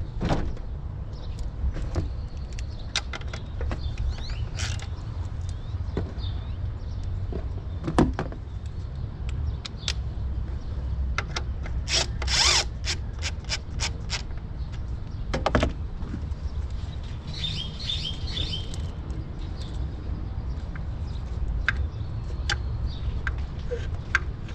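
A cordless impact tool briefly hammering at an intake manifold bolt, about halfway through, among scattered metal clicks and clinks of tools on engine parts, over a steady low rumble. A short high squeak follows a few seconds later.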